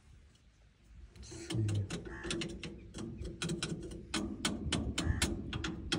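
Mechanical clicking: a quick, irregular run of clicks over a steady low hum, starting about a second in.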